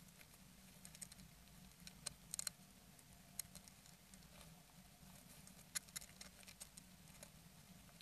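Small bird brooding in a wooden nest box: faint scattered clicks and scratches of it shifting in the nest material, a short cluster about two seconds in and another around six seconds in, over a steady low hum.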